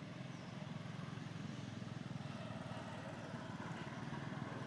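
A motor vehicle engine running steadily, a low, fast, even pulsing.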